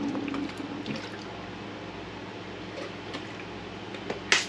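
Wet dripping and slopping of liquid, with light scattered clicks and one sharp click near the end.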